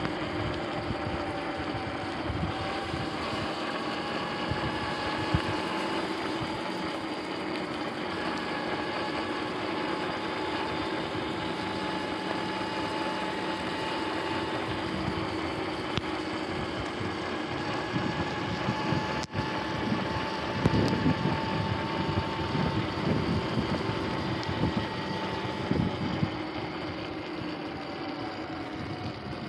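Sur-Ron X electric dirt bike's motor whining steadily while riding, its pitch dropping a little near the end. Wind buffets the microphone in gusts through the second half.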